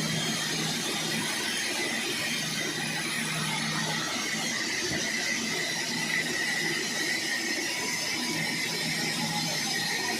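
Sawmill saw running steadily, with a constant high whine over a noisy mechanical drone.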